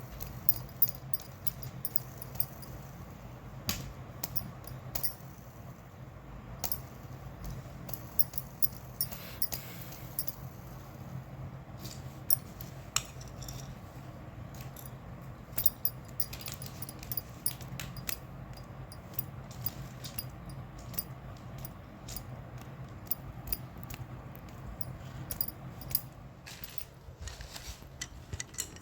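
Small hard-shelled candies clicking and rattling against each other and their plastic packaging as they are handled, in irregular runs of sharp ticks, over a steady low hum.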